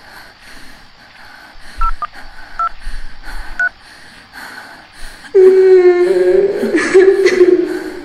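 A few short electronic beeps like telephone keypad tones, then from about five seconds in a loud, long, high wailing voice that wavers a little before fading.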